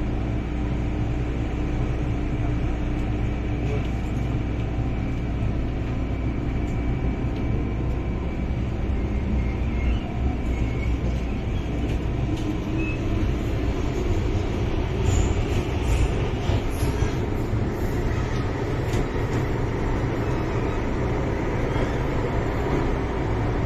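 Hong Kong MTR Island Line M-Train, heard from inside a car as it pulls out of a station into the tunnel: traction motor hum with steady tones, joined from about eight seconds in by louder wheel and track rumble. In this car (A215) the motor sound comes out unusually doubled.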